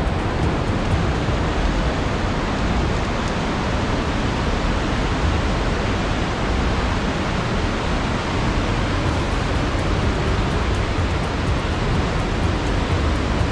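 Fast mountain stream rushing through a narrow rocky gorge: a loud, steady rush of white water.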